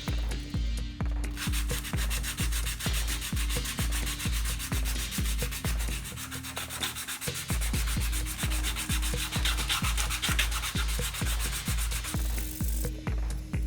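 Sandpaper rubbing back and forth on a 3D-printed plastic body shell, a steady scratchy hiss that stops about a second before the end. Background music with a steady beat plays underneath.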